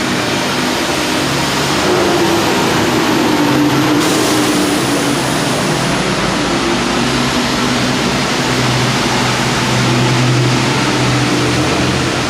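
Steady rush of rainwater running off the bridge, mixed with the engine hum of passing road traffic, which grows stronger in the second half.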